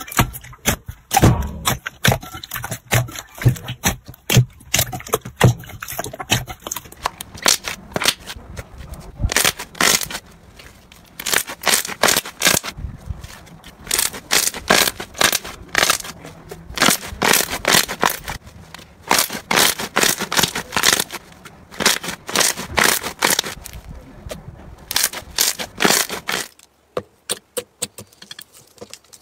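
Hands squeezing, pressing and stretching slime, giving quick clusters of sticky crackles and pops from trapped air. The sound thins and softens near the end.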